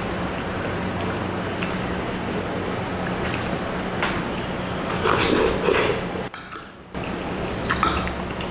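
Close-up eating sounds: wet, squishy chewing of a mouthful of lomi noodles, with light clicks of a fork and spoon against a glass dish, over a steady low hum. About five seconds in there is a louder wet stretch, and the sound drops away briefly just after it.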